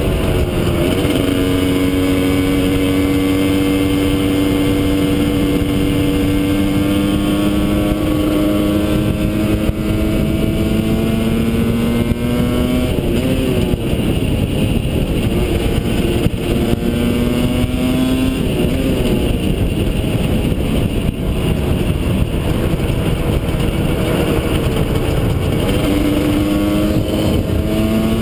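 Husqvarna SM 125 two-stroke supermoto with a Jollymoto aftermarket exhaust, ridden on the road. The engine pitch climbs slowly under throttle, then falls away sharply about halfway through, again a few seconds later and near the end, over a heavy rushing wind noise.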